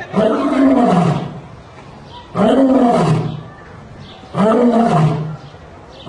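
Male lion roaring: three long calls about two seconds apart, each rising then falling in pitch.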